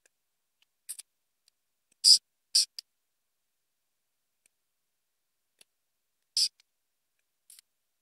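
Brief hissing 's' sounds from a spoken quote, heard alone with the rest of the voice stripped out: a de-esser's Listen mode playing back only the sibilance it removes. About seven short hisses come at irregular intervals, the loudest about two seconds in.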